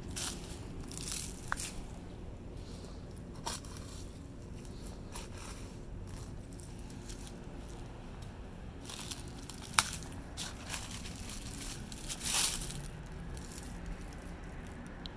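Footsteps crunching through dry leaf litter and twigs, with scattered crackles and brush rustling, one sharp snap and a louder rustle shortly after.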